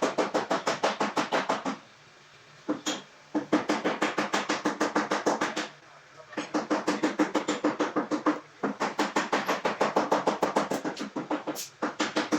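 Music with a fast, even drumbeat of about eight strokes a second, stopping briefly several times.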